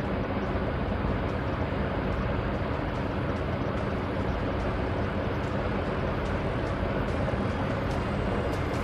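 Steady, even background noise with a faint low hum underneath and no distinct events.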